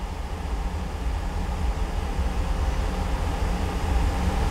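Pickup truck engine idling: a steady low rumble that grows gradually louder.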